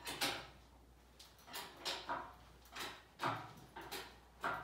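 A series of short, irregular clanks and scrapes, about six in under five seconds, as a 3.5 EcoBoost engine and transmission hanging from a shop crane are shifted and guided down into an early Ford Bronco's chassis.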